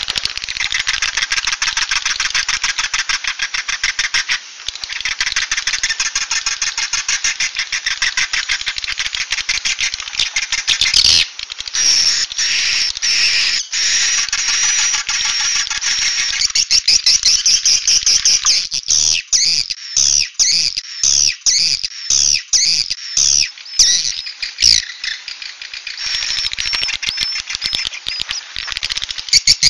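Edible-nest swiftlet calls, a recorded 'suara inap' roosting lure of the kind played in swiftlet houses: a dense, continuous twittering of rapid buzzy chirps and clicks. About two-thirds of the way through, it breaks into separate sliding chirps with a few dull thumps.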